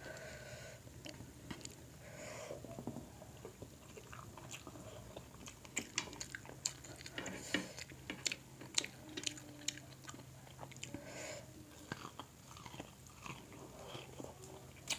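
Close-miked eating of a seafood boil: quiet chewing and mouth sounds, with scattered sharp clicks and cracks as crab shell, mussels and corn are picked apart by hand. The clicks come thickest in the second half.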